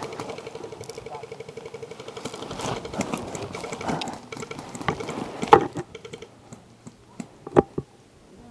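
An airsoft electric gun firing on full auto: a rapid, even ticking for about six seconds, then a few separate sharp cracks.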